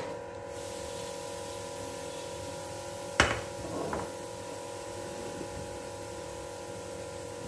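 Steady hum made of a few fixed tones, with one sharp knock about three seconds in and a softer knock just after.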